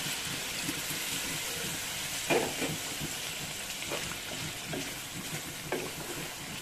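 Mutton curry sizzling and hissing in a hot pan after a little water has been added, with a spatula stirring and scraping the meat; short scrapes stand out about two, four and five and a half seconds in.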